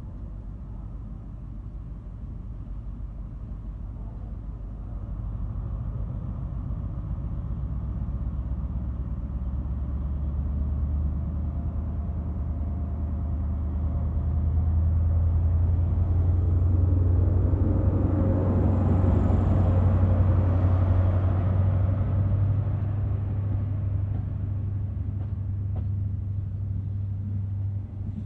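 Class 43 HST power car's diesel engine running with a deep steady rumble that grows louder through the middle and eases toward the end. A few sharp clicks come in near the end.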